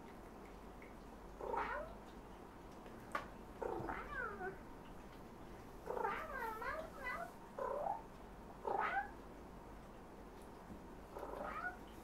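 Domestic cats meowing: about six short bouts of pitched calls that rise and fall, the longest a quick run of several calls about halfway through. A single sharp click comes about three seconds in.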